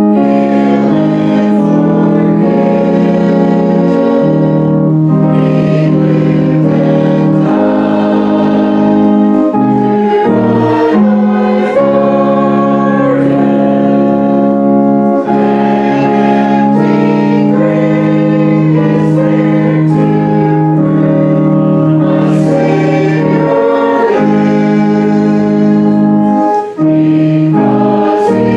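Congregation singing a hymn in unison with keyboard accompaniment, the chords held and changing every second or so.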